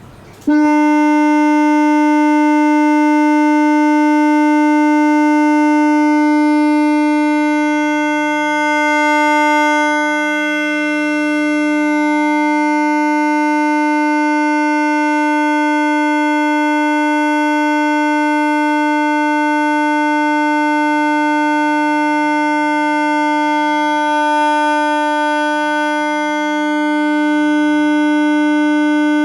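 A loud, steady, buzzy electronic test tone, pitched roughly at the D above middle C and rich in overtones, played through speakers as a hearing-test stimulus. It switches on abruptly about half a second in and holds without changing pitch.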